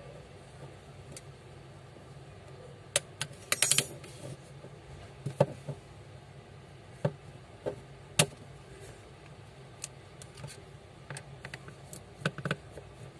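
Scattered sharp clicks and taps of a Vivo V21 smartphone being opened and handled on a workbench: its back cover prised off, with a quick run of clicks a little under four seconds in, then a screwdriver working at the midframe near the end. A steady low hum sits underneath.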